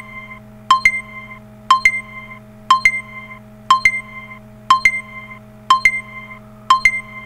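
Countdown timer's end alarm going off at zero: an alarm tone repeating about once a second, each ring a sharp double strike followed by a short ringing tone.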